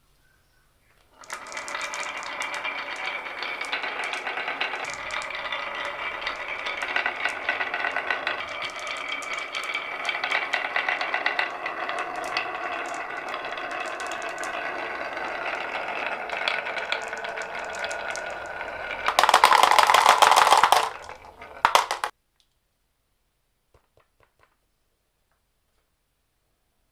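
Many marbles rolling and clattering down wooden and plastic marble-run tracks, a dense continuous clatter of clicks and ringing knocks. A louder rush comes about 19 s in, then the sound stops abruptly at about 22 s, leaving a few faint clicks.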